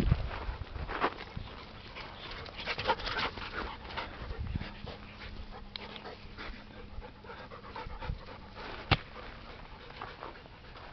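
Dog panting, with irregular scuffs and rustles on a dirt path as the dogs play and roll on the ground, and a sharp click about nine seconds in.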